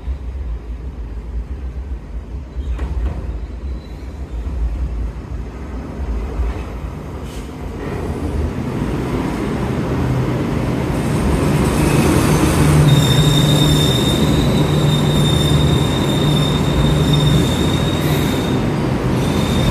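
Enoden train on the Enoshima Electric Railway approaching and drawing into a station, its rumble growing louder as it arrives. About two-thirds of the way through, a steady high-pitched squeal sets in as the cars pass alongside the platform.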